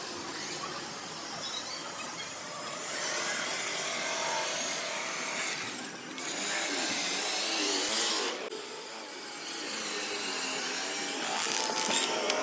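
Electric rotary polisher running with its foam pad buffing rubbing compound into a car's painted door panel: a steady motor-and-pad noise that eases off briefly a couple of times.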